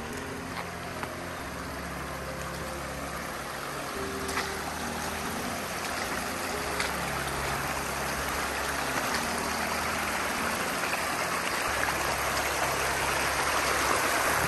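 Shallow mountain stream running over rocks, a steady rush of water that grows louder toward the end.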